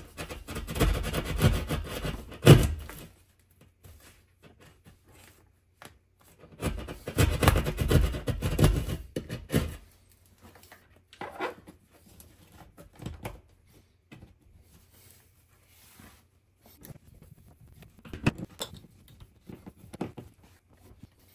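Drywall jab saw sawing back and forth through gypsum board to enlarge a hole for a bigger mounting bracket, in two bouts of quick strokes of about three seconds each. After that come a few scattered light knocks and clicks as the bracket is fitted.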